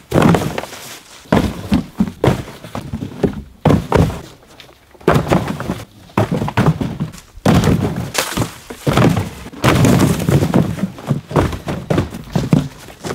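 Empty cardboard boxes being thrown and landing on a pile, a long run of thuds one after another at irregular spacing.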